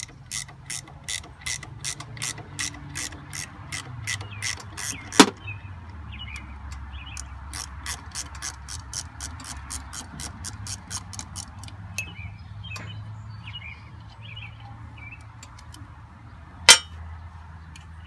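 Hand socket ratchet clicking as it is swung back and forth on a bolt of a John Deere 4440's air-conditioning compressor, about four clicks a second for the first five seconds, then slower and more uneven. Two louder sharp metal clacks, about five seconds in and near the end.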